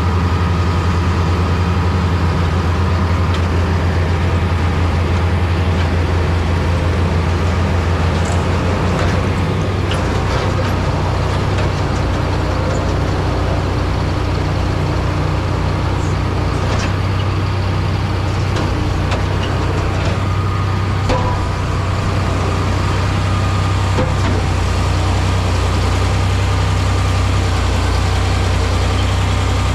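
Large diesel farm machine running steadily: a deep, continuous engine drone with faint rattles and clicks, its low note shifting slightly about ten seconds in.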